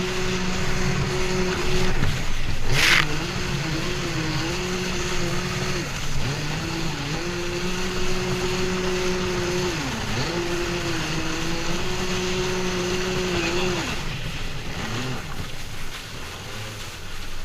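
Yamaha EX Sport jet ski's engine running at speed, its pitch steady but dipping briefly a few times as the throttle eases and comes back on. A short hissing rush about three seconds in, and the engine note falls away about fourteen seconds in.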